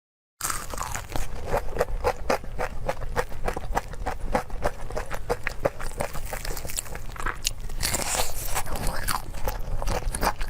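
Close-miked crunchy eating: a person biting and chewing food with a fast, dense run of crunches that starts abruptly about half a second in.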